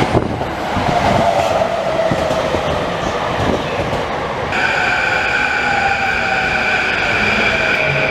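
Electric commuter train running on the rails with a steady rumble and a slowly falling whine. About halfway through, a steady high-pitched whine sets in suddenly and holds.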